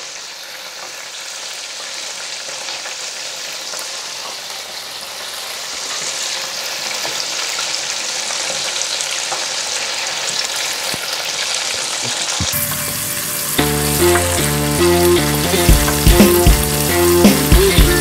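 Breaded chicken hearts deep-frying in an electric deep fryer's oil at 180°, the second high-heat fry that crisps the coating: a steady sizzle and crackle that slowly grows louder. About two-thirds of the way through, background music with a beat comes in over it and is the loudest sound near the end.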